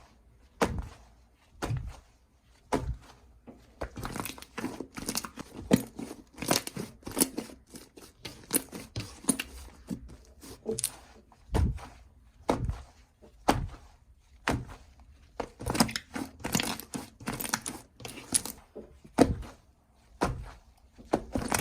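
Slime with added beads being squished and pressed by hand: irregular crackling and sticky popping, with sharper pops about once a second.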